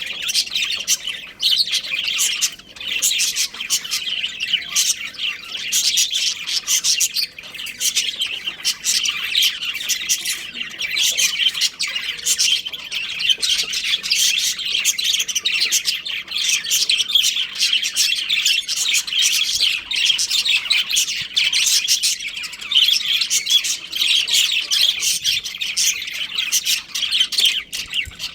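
Budgerigars chirping and chattering without pause, many quick high chirps overlapping.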